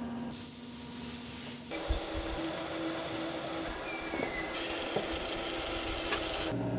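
Factory machine noise: a steady machine hum, then, from about two seconds in, a pottery roller-forming machine whose spinning head shapes a clay earthenware pot. It runs with a steady tone and a hiss, and a few light knocks.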